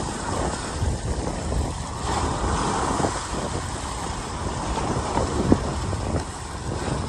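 Waves breaking and washing over the jetty's rocks, with wind buffeting the microphone into a steady low rumble. A brief knock about five and a half seconds in.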